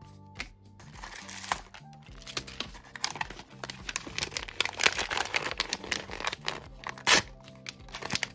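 Blind-box toy packaging crinkling and tearing as it is opened by hand, with the loudest crackle about seven seconds in, over background music.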